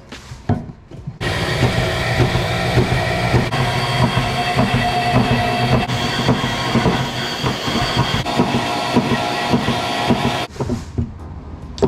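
Power tool cutting through steel plate to cut out shock-mount tabs, running hard with a fast chattering rattle. It starts about a second in and stops shortly before the end.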